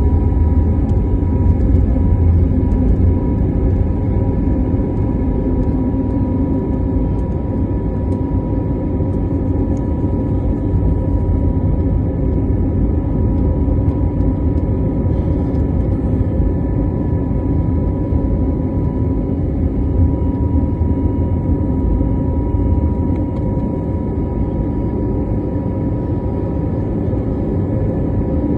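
Aeroplane landing: a steady, loud engine and air rumble with a thin steady whine over it, unchanging throughout.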